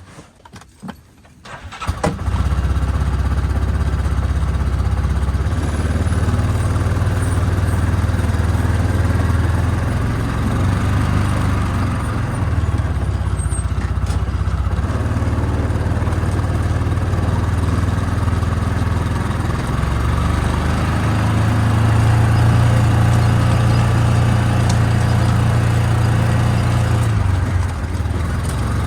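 A utility vehicle's engine starts about two seconds in, then runs steadily, with small rises and dips in level.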